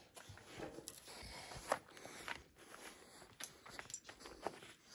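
Footsteps and light knocks on clay roof tiles: faint, scattered clicks and taps, the loudest a little under two seconds in.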